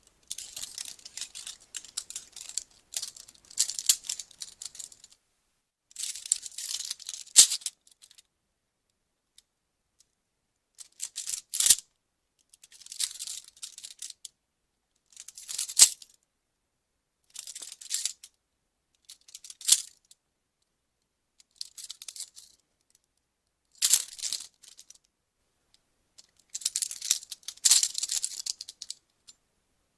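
Metal police handcuffs being worked over and over: bursts of metallic ratcheting and rattling every two to four seconds, with silent gaps between them. Several bursts end in a single sharp click.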